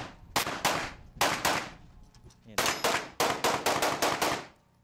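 Handgun shots at a practical pistol match. Two quick pairs (double taps) come in the first second and a half, then a fast string of about eight shots, the last about half a second before the end.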